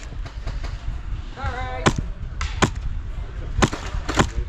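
Airsoft guns firing single sharp shots, four cracks at uneven intervals across the second half, over a steady low rumble. A distant voice calls out briefly about a second and a half in.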